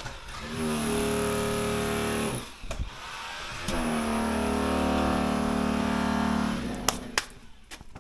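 A motor running steadily in two stretches of about two and three seconds with a short break between, followed by two sharp clicks near the end.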